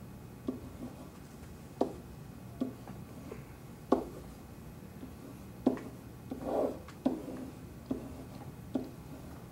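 A pen tapping and stroking against an interactive whiteboard surface as numbers are written by hand. It makes a string of sharp, irregular taps and one longer stroke about six and a half seconds in.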